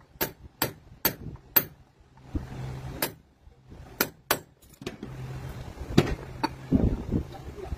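Hammer tapping on metal in a steady run of about two and a half sharp taps a second, which stops after about a second and a half. A few scattered taps follow, then a duller thud near the end.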